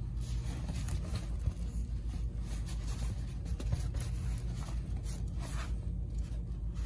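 Irregular scratchy rustling and scraping of fabric as a cat wrestles and bites a plush toy in its cloth bed.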